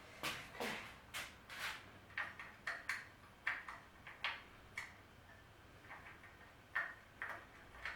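Light, irregular clicking, two or three clicks a second, from a screwdriver working screws loose during disassembly of a Shopsmith.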